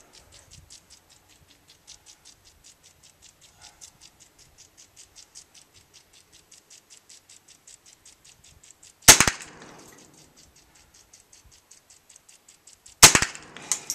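Two gunshots about four seconds apart, the first about nine seconds in: shots at a shotgun shell's end and then at a playing card. Before them, a faint, fast, steady ticking.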